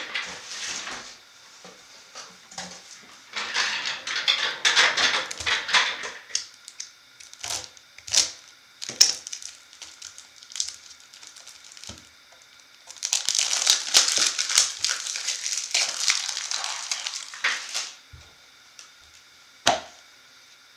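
Packaging crinkling and crackling as it is handled, in two stretches of a few seconds each, with scattered sharp clicks and taps between them.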